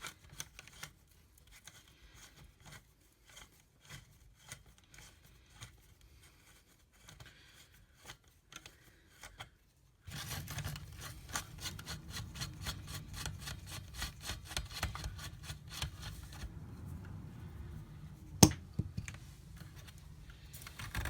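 Small 4BA nuts being worked off the CRT clamp of a Heathkit OS-2 oscilloscope: light metallic clicks and scrapes of a tool on the nut. The clicks are sparse at first, then come as a rapid run about halfway through, with one sharp click near the end.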